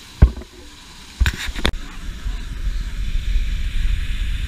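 A few sharp knocks from handling the action camera on its pole. Then, from a couple of seconds in, a steady low rumble and hiss of falling water as the camera is held at the surface of the pool below the waterfall.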